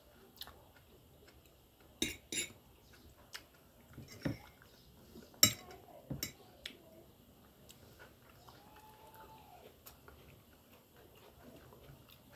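Metal fork and fingers clinking against glass dinner plates while eating: a handful of short, light clinks between about two and seven seconds in, the sharpest about five and a half seconds in, with quiet chewing.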